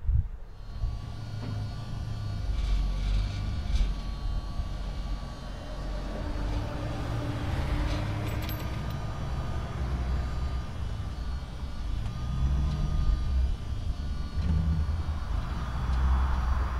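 Diesel engines of mini excavators running steadily while they work, with a few short knocks.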